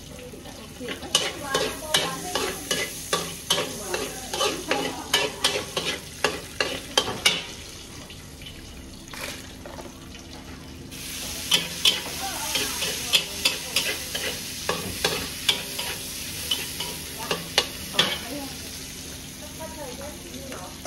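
Pad thai stir-frying: a spatula knocks and scrapes against the pan about three times a second over the sizzle of frying. After a short lull, the sizzle grows louder about eleven seconds in and the knocking resumes.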